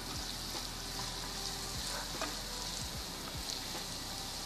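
Food sizzling steadily in hot oil in a nonstick frying pan, stirred with a wooden spoon that gives scattered light taps and scrapes against the pan.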